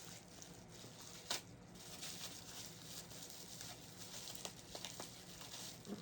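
Faint handling of a toy figure's packaging being opened by hand: light rustling with a few small sharp clicks, the loudest about a second in and a cluster near the end.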